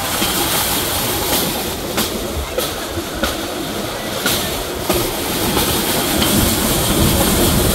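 Pedal-powered rail bike rolling along old steel rails: steel wheels rumbling on the track, with sharp clicks every half second to a second.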